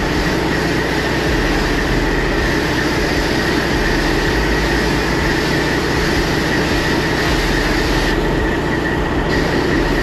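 Self-serve car wash high-pressure wand spraying water onto a semi truck's frame and chassis: a loud, steady hiss of spray with a constant high tone under it. The hiss thins briefly about eight seconds in.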